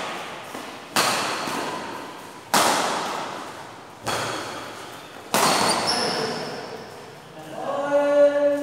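Badminton rackets striking the shuttlecock in a rally, four sharp hits about a second and a half apart, each echoing through a large hall. Near the end a player's voice calls out.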